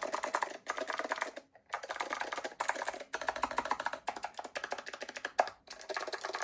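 Typing on a Keymacs keyboard with SKCM Blue Alps switches and thick cast polyurethane keycaps: a rapid run of key clicks with a few brief pauses, giving a bassy sound.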